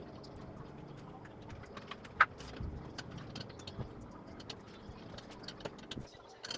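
Scattered light clicks and taps over faint background noise, with one sharp click about two seconds in.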